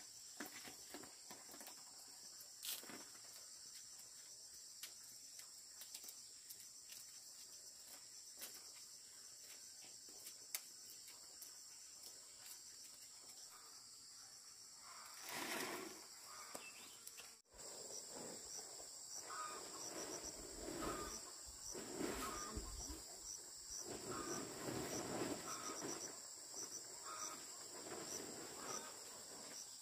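Insects trilling steadily in a high chorus, with scattered faint clicks. About halfway through the sound breaks off abruptly, then short rapid chirps repeat over louder rustling and shuffling.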